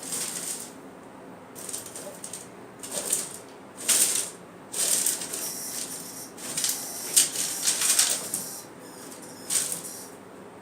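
Irregular bursts of scratching and rattling inside an unused chimney pipe, in about six clusters with short pauses between them. The uploader takes this for an animal struggle in the pipe, a mouse being attacked and then dragged away.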